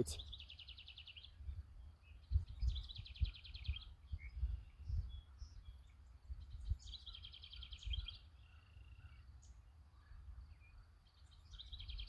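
Faint house wren song: a rapid trilled phrase of about a second, repeated four times, every three seconds or so. Short chirps from other birds come between the phrases, over a low rumble.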